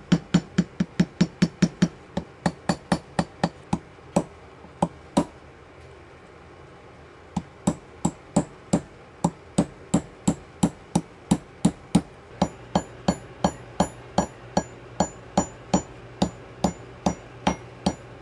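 Small hammer tapping a punch against a steel pistol slide, about three blows a second, with a pause of a couple of seconds near the middle. The blows are driving out a detent plunger held fast by corrosion, and the later blows ring briefly.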